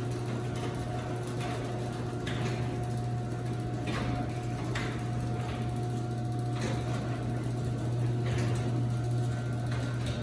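Garage door opener motor running steadily as it drives the door closed, a low hum with a fainter steady whine above it, with scattered clicks and knocks from the door and rail every second or two.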